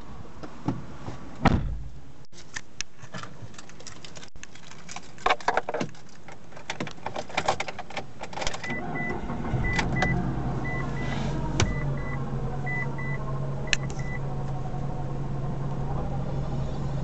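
Clicks and handling noise in the car's cabin, then about halfway through the 2005 Mitsubishi Galant's 2.4-litre four-cylinder engine starts and runs at a steady idle. A dashboard warning chime beeps in pairs for several seconds after the start.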